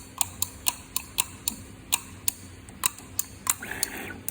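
Automatic soldering machine clicking as it runs its cycle: a string of sharp, unevenly spaced clicks, two or three a second, over a faint steady hum.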